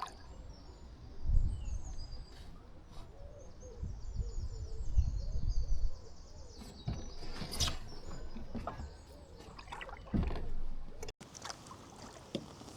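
Small birds singing with short high chirps over the sounds of a canoe being paddled: a few knocks and splashes from the paddle, and low rumbles of wind on the microphone. The sound cuts off abruptly about 11 seconds in and resumes.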